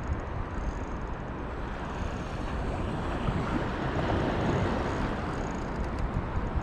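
Wind buffeting the microphone, a steady rushing noise that swells a little in the middle, with the wash of shallow sea water under it.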